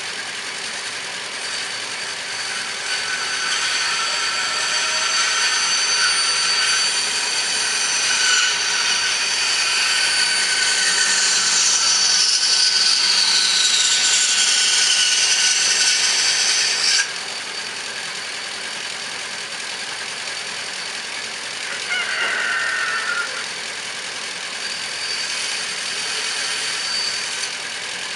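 A power tool running on hardwood with a high-pitched whine whose pitch sags downward for a few seconds, then cuts off suddenly a little over halfway through, leaving a lower steady hum.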